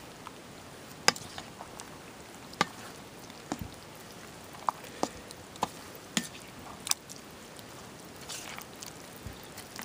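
A black plastic spoon stirring bread cubes into a wet egg mixture in a stainless steel bowl: an irregular run of sharp clicks and taps as the spoon strikes the bowl.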